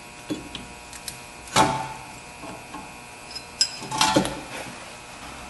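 A few separate metallic clinks and knocks as a brake caliper piston wind-back tool is fitted against a rear disc brake caliper piston, the loudest about a second and a half in with a short ringing, and another cluster near the end.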